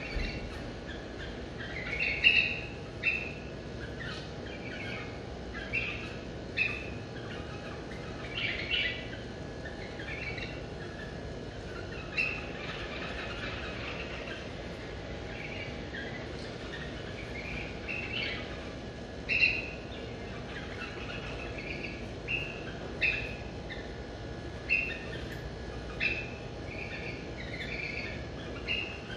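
White-eared bulbuls giving short chirping calls, a single chirp or a quick pair every second or two, with several birds calling. Under them runs a steady low background rumble.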